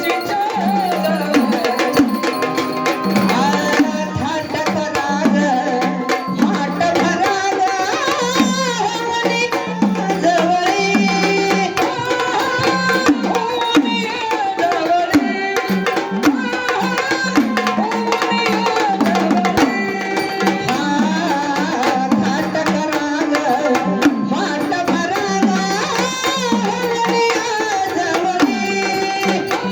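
Gondhal folk music: sambal drums beating a steady rhythm under a keyboard organ melody.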